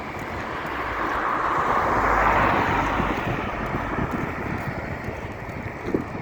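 A vehicle passing by, its tyre and road noise swelling to a peak about two seconds in and then fading away, over a low rumble of wind on the microphone.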